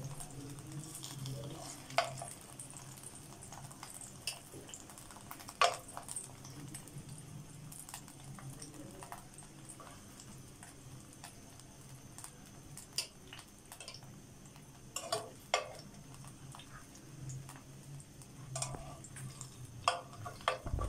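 Metal kitchen tongs clicking and scraping against a non-stick frying pan as shallow-fried cabbage rolls are lifted out, a handful of sharp clinks spread out over a low steady hum, with a faint sizzle of the oil.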